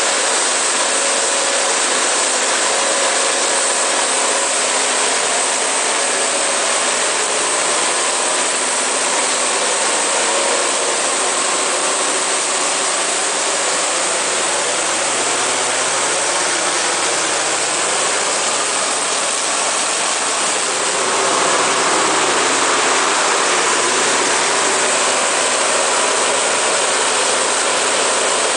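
Cummins KTA50-G9 V16 diesel engine of a 1500 kW generator set running steadily, an even, dense mechanical noise that grows a little louder about three quarters of the way through.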